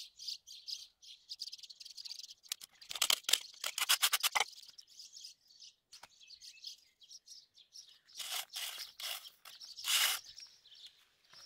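Small birds chirping and trilling, with a few scrapes of a steel shovel pushing earth-moist concrete gravel near the end.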